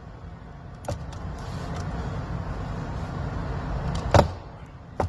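Plastic retaining clips of a 2018 Lincoln Navigator's door panel popping loose as the panel is pried off with a plastic pry tool: a small click about a second in and a loud sharp snap about four seconds in, over a steady low rumble.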